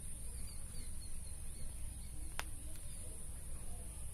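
Faint background ambience: a steady low hum and a thin high-pitched whine, with a few faint distant bird chirps and one sharp click a little past halfway.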